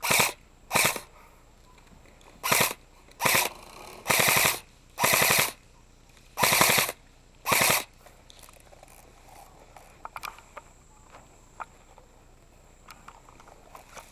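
Airsoft rifle firing eight short full-auto bursts of rapid shots over about eight seconds, a couple of them longer. After that come only a few faint single clicks.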